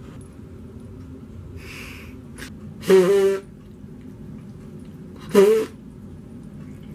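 Small dog whining twice, short pitched whimpers about three seconds in and again about five and a half seconds in, as it is held up and hugged.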